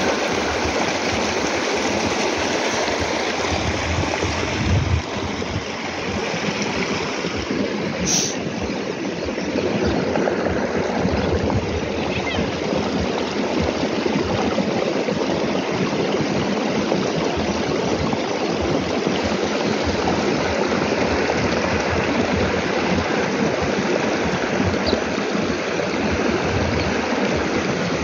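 Muddy water rushing steadily along an earthen irrigation ditch, with a brief click about eight seconds in.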